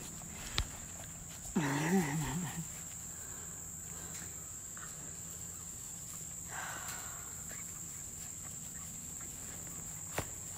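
Steady high chirring of crickets, with a short vocal sound of wavering pitch about two seconds in and a few light scuffles and clicks.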